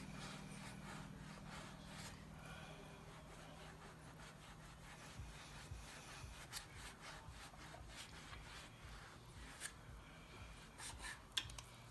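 Faint sawing and rubbing of a knife blade cutting through a soaked, boiled ball of dryer lint, with a few sharp clicks in the second half.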